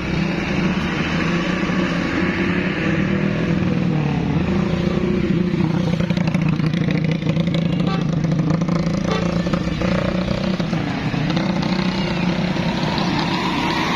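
Vehicle engine running with a steady low drone.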